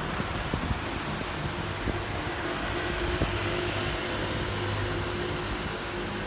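Traffic on a wet city street: a steady hiss of tyres and rain, with a vehicle's low engine hum growing louder from about two seconds in as it passes close, then easing.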